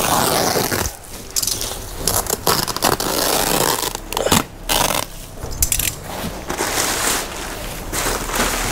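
Woven plastic sack and plastic wrapping rustling and crinkling as they are pulled and handled off a large bale, in irregular rushes with short pauses.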